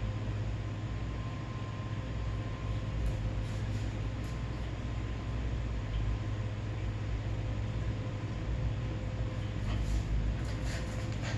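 Steady low machine hum with a faint high whine running through it, and a few light clicks near the end.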